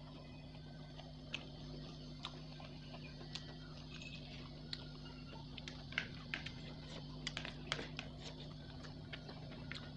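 Metal spoon and fork clicking and scraping against plastic plates: light, irregular clicks, busiest in the second half, over a steady low hum.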